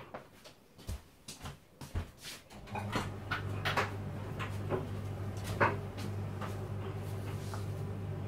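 Knocks and clatter of kitchen things being fetched and handled, a paint palette and a colour bottle among them. A steady low hum starts about three seconds in, with more clicks over it, and stops at the end.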